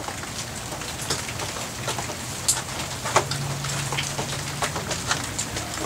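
Rain pattering, with single drops ticking irregularly. A faint low hum comes in for a couple of seconds in the middle.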